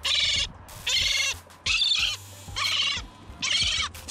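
A young gull snagged on fishing line and held up by the line, calling in distress: five calls of about half a second each, about one a second.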